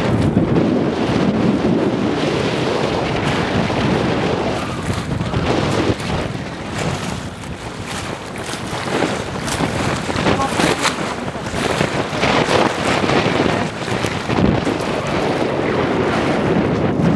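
Wind buffeting the microphone in strong gusts, with a rumbling roar that eases briefly around the middle and then returns.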